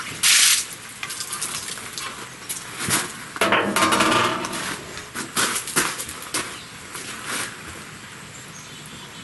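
Steel Pit Barrel Cooker being handled: a brief splash as the lid is lifted, a ringing metal clang about three and a half seconds in as the lid is set against the barrel, then a run of sharp metal knocks and rattles as the charcoal basket of briquettes is worked into the barrel.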